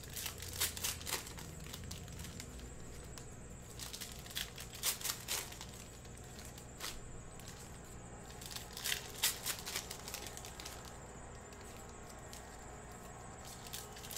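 Trading card pack wrappers crinkling and crackling as packs are opened and the cards handled, in short bursts every second or two.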